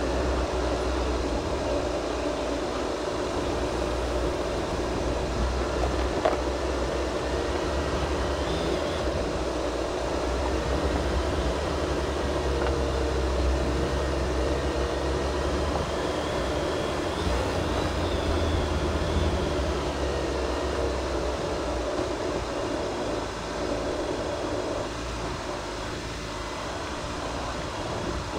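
Jeep Wrangler JL driving off-road: a steady low engine and drivetrain rumble with tyre noise, and a single sharp knock about six seconds in.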